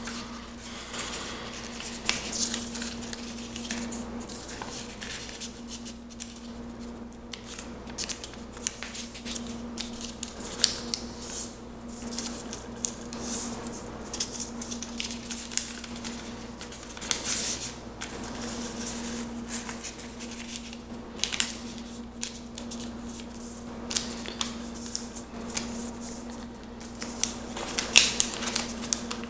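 Sheet of lined notebook paper being folded by hand: irregular rustling and crinkling with sharp crackles as folds are pressed flat, the loudest near the end. A faint steady low hum lies underneath.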